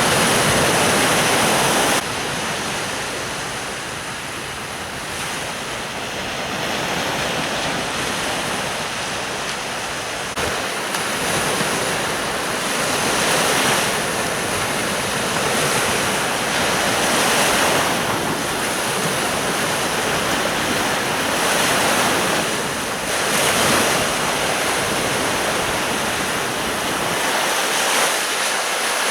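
Sea surf breaking on a beach, waves surging in every few seconds, with wind buffeting the microphone. The sound changes abruptly about two seconds in and again near the middle.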